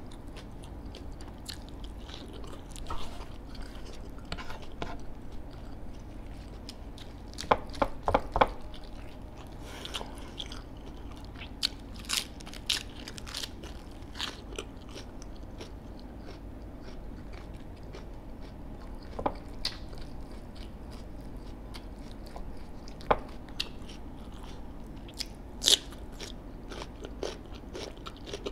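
A person eating close to the microphone: chewing, with sharp crunches at irregular intervals, loudest as a quick run of three about eight seconds in.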